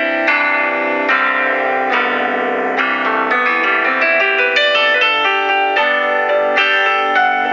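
Instrumental background music: a melody of separate notes, each starting sharply and fading, with a keyboard-like sound.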